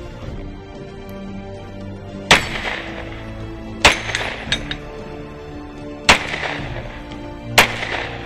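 Four pistol shots from a 10mm 1911-style handgun, fired one at a time about one and a half to two seconds apart, each with a short ringing echo, and two fainter sharp knocks just after the second shot. Background music plays underneath.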